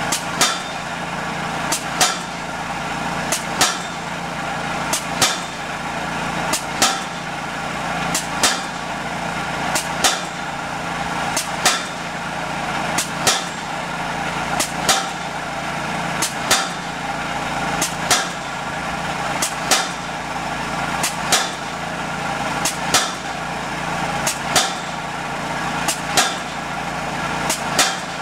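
600 lb pneumatic piling hammer striking the top of a wooden dock piling about every 1.6 seconds, each blow a sharp knock, driving the piling deeper into the mud below a jetted start. Under the blows, a small gas engine drones steadily.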